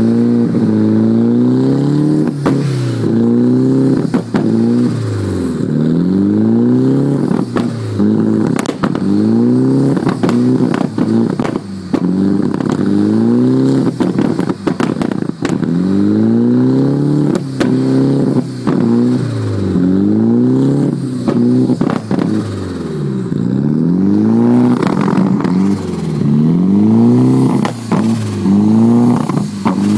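Nissan 240SX engine at a rough idle, its speed hunting up and down over and over, about every second and a half, with scattered sharp ticks.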